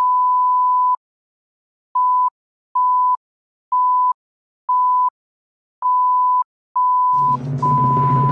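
Film-leader countdown beeps: a single steady electronic tone near 1 kHz, first held for about a second, then six short beeps about once a second, then a longer beep. About seven seconds in, the song's music comes in under the last beep.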